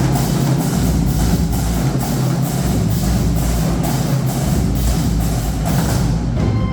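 High school marching band playing, with percussion keeping a steady beat of about four strikes a second over sustained low notes.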